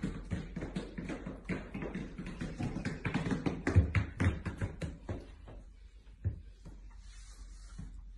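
Booted feet of two huskies stepping on a hard floor: a quick, irregular run of taps and knocks from the dog boots that thins out after about five seconds.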